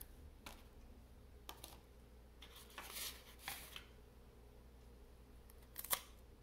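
Faint, scattered rustles and light taps of a small cut piece of cardstock being handled on a craft mat, with a sharper tap near the end.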